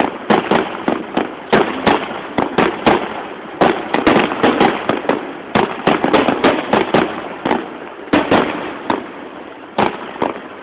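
Aerial fireworks display: a rapid, irregular run of bangs and crackles from shells bursting, thinning slightly near the end.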